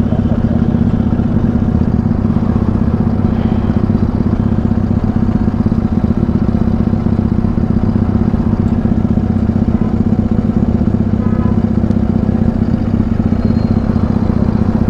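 Motorcycle engine running steadily at an even pitch, heard up close from the rider's seat, with no revving.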